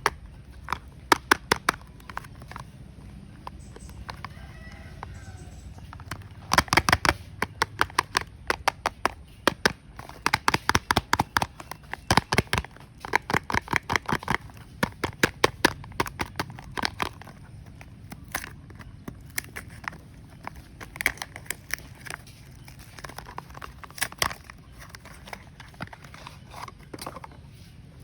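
Soap packaging being handled and opened: bursts of quick, sharp clicks and crackles, several to the second, with short pauses between the bursts.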